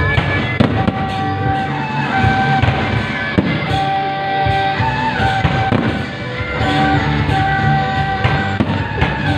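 Aerial fireworks bursting overhead, with repeated sharp bangs and crackling throughout, over loud music with long held notes.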